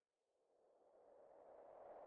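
Wind rushing, fading in from near silence and rising steadily in level, without any distinct tone.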